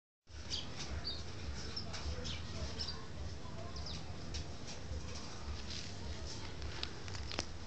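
Small birds chirping here and there over a steady low rumble, with faint distant voices and a few sharp clicks, the loudest about seven seconds in.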